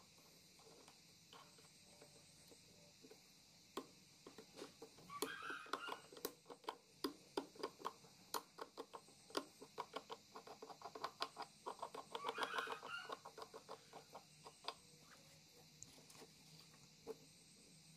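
Faint, intermittent animal calls in short runs of rapid pulses, strongest about five seconds in and again around twelve seconds.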